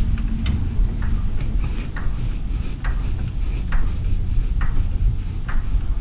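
Hydraulic floor jack being pumped by its long handle to lift the front of a car, a short click or creak with each stroke about once a second, over a steady low rumble.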